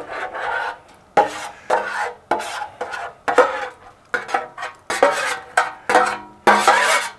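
A kitchen utensil scraping and knocking against cookware in repeated sharp strokes, about one every half second: the marinade being scraped into a small pan to be heated.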